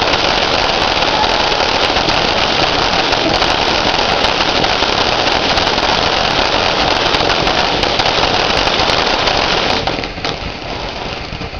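Tiki ground fountain firework spraying sparks: a loud, continuous hissing spray peppered with fine crackles, which weakens about ten seconds in as the fountain dies down.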